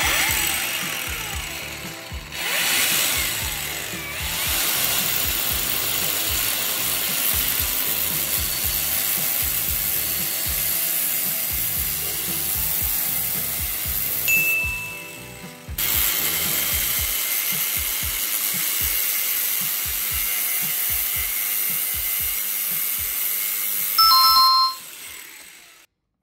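A power tool running loudly, pausing briefly about fourteen seconds in and stopping near the end, over background music with a steady beat. A short, loud beep sounds just before it stops.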